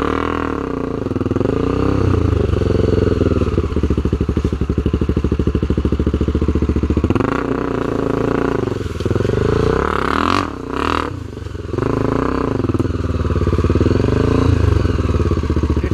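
Dirt-bike engine revving up and down over and over as it climbs, its pitch rising and falling, with a short drop in revs about ten seconds in.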